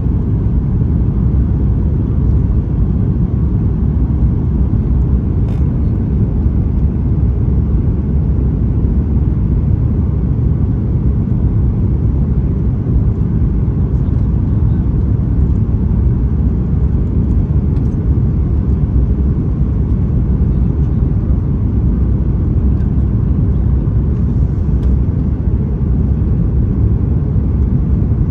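Boeing 737 MAX 9 airliner cabin noise: a steady low rumble of its CFM LEAP-1B engines and rushing air, with no distinct bumps or changes.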